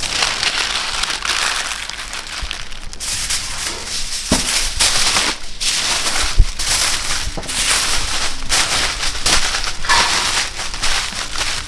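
Parchment paper and then aluminium foil crinkling and crumpling as they are wrapped and pressed tightly around a large bone-in joint of meat, a continuous run of sharp crackles.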